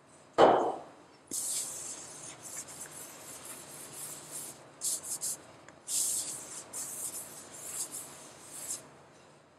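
Damp sponge wiped back and forth over an inked aluminum lithography plate in a series of soft, hissy rubbing strokes, keeping the plate wet between inking rolls. A short thump just before the strokes begin is the loudest sound.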